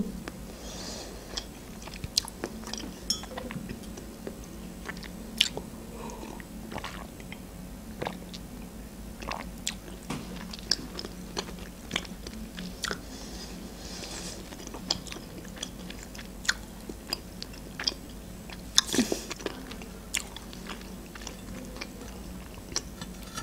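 Close-up mouth sounds of someone eating sticky cotton candy: soft chewing with scattered wet lip and tongue clicks, and one louder smack about 19 seconds in.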